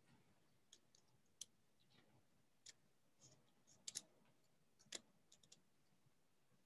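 Faint, irregular clicks of a computer mouse, a dozen or so, over near silence, with the sharpest ones about four and five seconds in.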